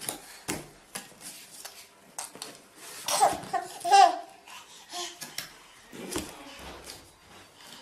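A baby laughing and babbling in short bursts, loudest about three and four seconds in, among scattered small knocks and clicks.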